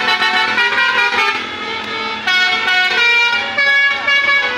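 Multi-tone musical bus horn sounding several notes together and changing pitch in steps every half second to a second, like a short tune.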